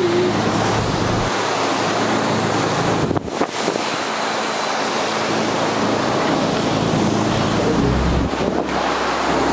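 Storm wind and rough sea: a steady rushing noise of breaking, churning waves, with gale-force wind buffeting the microphone. The noise briefly drops about three seconds in.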